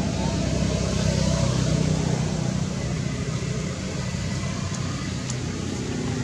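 A steady low motor hum, swelling slightly about a second in.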